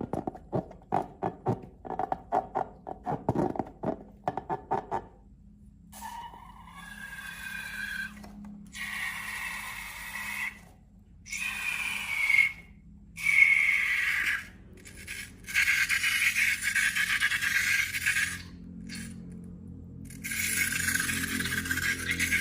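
Slime and rubber balloons being handled: first a quick run of short sticky clicks, then several squeaky, scraping strokes a few seconds long with short pauses between them.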